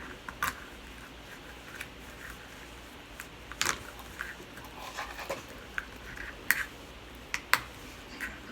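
Small clicks and scrapes of an oyster shell being pried open by hand, scattered and irregular, with the sharpest clicks about a third of the way in and in the second half.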